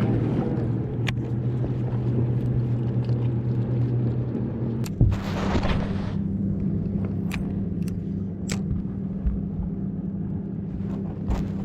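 Boat motor running with a steady hum that shifts in pitch about five seconds in. A short rush of noise comes with the change, and there are a few sharp clicks.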